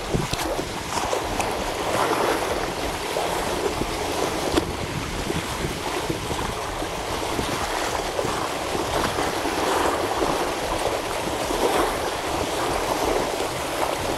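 Small sea waves breaking and washing over shoreline rocks in irregular surges, with some wind rumbling on the microphone.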